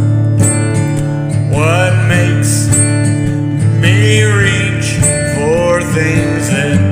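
Country music played between sung lines: guitar over steady bass notes, with a lead line of notes that slide up into pitch about three times.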